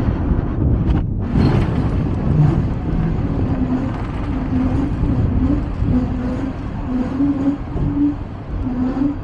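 Hong Kong double-decker tram running along the street: a steady rumble of wheels and running gear with a wavering motor hum, briefly dropping out about a second in.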